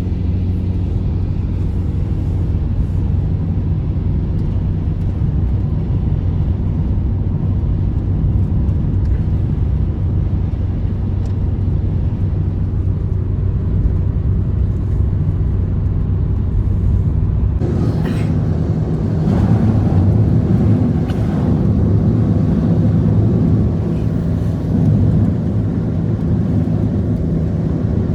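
An engine running steadily with a low hum. About 18 seconds in, it turns louder and rougher.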